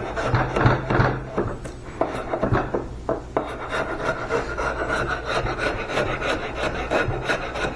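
A hand tool scraping the bark off a raw walnut slab in a run of short, irregular strokes of wood rasping on wood.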